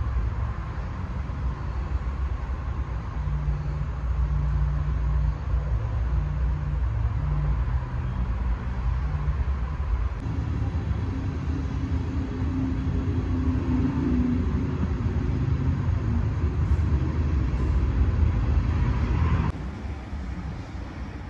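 Steady low mechanical rumble of body-shop background noise, with a few shifting low hums; the sound changes abruptly about ten seconds in and again near the end.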